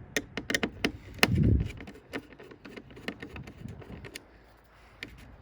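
Scattered clicks, taps and light clinks of metal and plastic TV parts being handled, with one heavier thump about a second and a half in.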